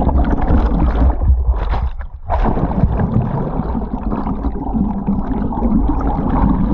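Rushing, gurgling water heard through a camera held underwater, muffled, with a low boat rumble underneath. It dips briefly about two seconds in.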